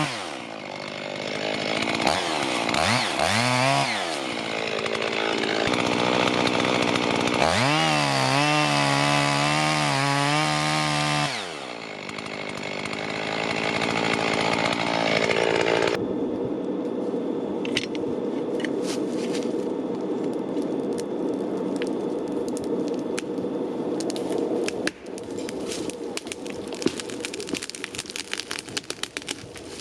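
Husqvarna 55 two-stroke chainsaw running and cutting wood, its engine pitch rising and falling repeatedly as it bogs under load and revs free, during roughly the first eleven seconds. After that the engine tone gives way to a steadier rushing noise with many sharp clicks and cracks in the second half.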